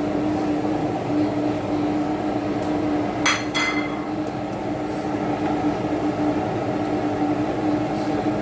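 Steady kitchen hum with one constant low tone, broken about three seconds in by two quick metallic clinks of kitchenware a fraction of a second apart.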